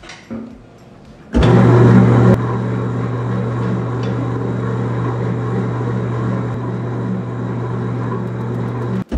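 Electric spiral dough mixer (G.Paniz) switched on about a second and a half in, then running steadily as its spiral hook kneads bread dough: a loud, even motor hum with a faint regular pulse beneath it.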